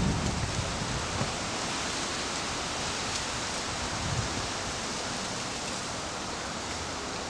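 Steady hiss from an outdoor nest-camera microphone, with a few soft low rumbles of wind buffeting it, about a second in and again around four seconds.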